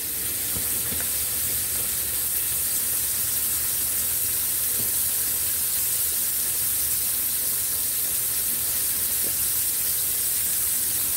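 Flour-dredged pork chops frying in hot oil in a skillet, a steady sizzle.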